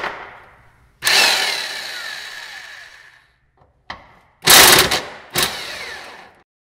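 Electric impact wrench running in three bursts as it loosens the fuel-tank strap bolts. The first, about a second in, is the longest and winds down in pitch over about two seconds; the other two come close together near the end.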